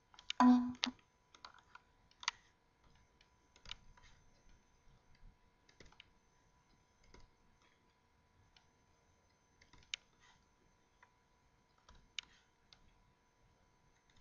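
Computer mouse clicking: sparse single sharp clicks one to two seconds apart, on a quiet background with a faint steady high hum. A brief voice sound comes about half a second in.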